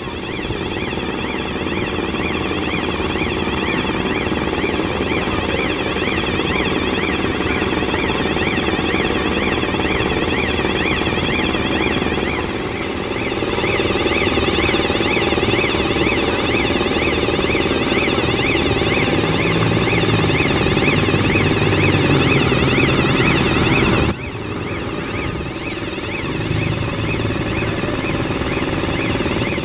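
Warning alarm on a girder launcher, a rapidly warbling electronic tone sounding while the launcher is moved, over the steady running of its machinery. The alarm cuts off suddenly about 24 seconds in, leaving the machinery running.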